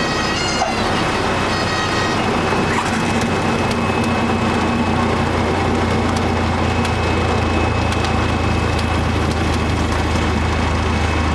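Single-engine light aircraft's piston engine idling with a steady low drone, heard inside the cockpit as the plane rolls out on the runway after landing. A steady high whine runs over it, with a brief wavering tone in the first two seconds.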